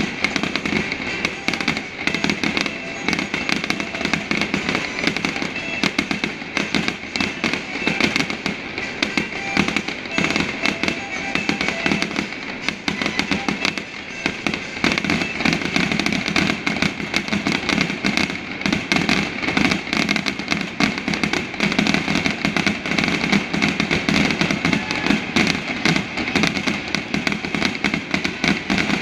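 Stadium fireworks display going off in rapid, dense succession: a continuous run of bangs and crackles with no real gaps.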